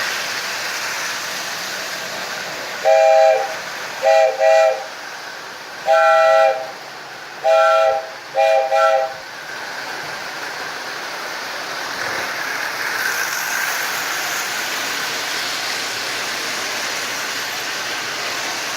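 Marx O-gauge toy train running steadily around its track, with a sounding whistle effect blown seven times between about three and nine seconds in: one long blast, two short, two long, then two short.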